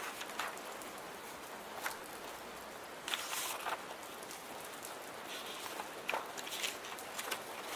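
Steady rain hiss, with a few short, irregular scratches and rustles of pen-and-paper desk work over it, the longest about three seconds in.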